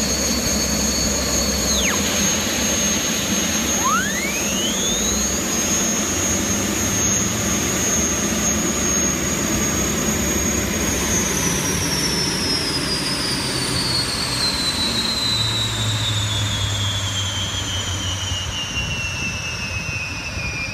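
Twin Lycoming T53 gas turbines of a racing catamaran running, a high whine over a dense rumble. About two seconds in, one whine drops sharply in pitch, and about four seconds in, another rises. The whine then holds steady, and from about eleven seconds in it falls slowly and evenly in pitch.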